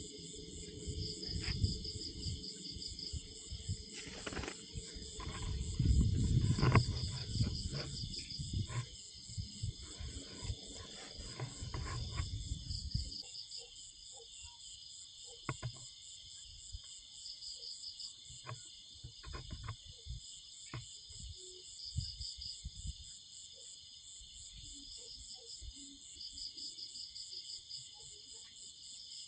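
Night insects, crickets among them, chirping steadily in fast pulsing trills. For about the first half there is also low rumbling and a few knocks close to the microphone; after that only scattered faint clicks.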